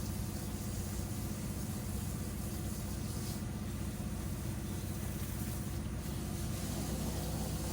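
Pressure washer's engine running steadily at an even speed.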